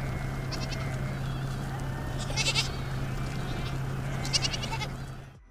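Herd of goats bleating: about three short, wavering bleats roughly two seconds apart over a steady low hum, all cutting off just before the end.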